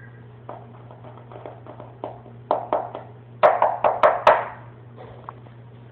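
A series of light taps and knocks, sparse at first and then a quicker, louder run of them between about two and a half and four and a half seconds in, over a steady low hum.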